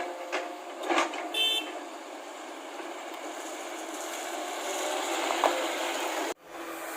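Vehicle running, with a short horn toot about one and a half seconds in. The engine noise slowly grows louder, then cuts off suddenly near the end.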